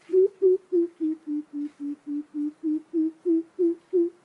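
Coucal (bìm bịp) calling: a long run of deep, evenly spaced hoots, about three to four a second, that dip a little in pitch in the middle and climb back.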